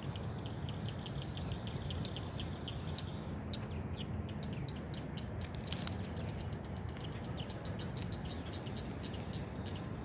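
Steady rush of a flowing creek, with a rapid run of short high chirps, about seven a second, from a bird or insect over it. A single sharp click about six seconds in.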